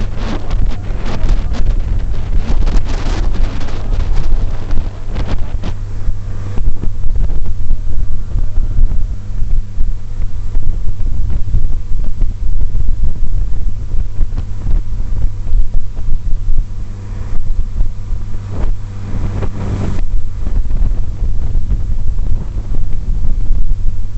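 Small passenger ferry's engine running with a steady low drone, while wind buffets the microphone in gusts, heaviest in the first few seconds and again about three-quarters of the way through.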